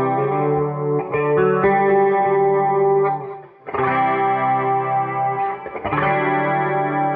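Electric guitar playing sustained chords through a Line 6 Spider 212 combo amp, with a new chord struck every one to three seconds and a short break about three and a half seconds in. The repaired amp is passing sound normally in its test.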